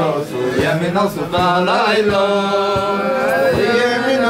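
Men's voices singing a Hasidic melody together in one held, gliding line, with a steady beat of sharp strokes underneath at roughly three a second.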